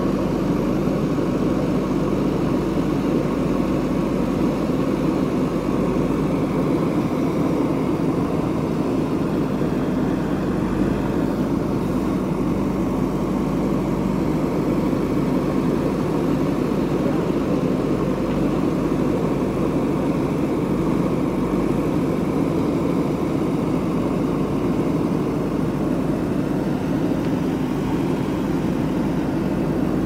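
JCB backhoe loader's diesel engine running steadily while its backhoe arm works, loading soil into a tipper truck.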